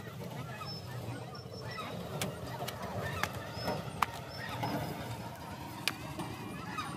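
Hoe blade chopping into thick wet mud, giving irregular sharp wet slaps and smacks, with birds calling in the background.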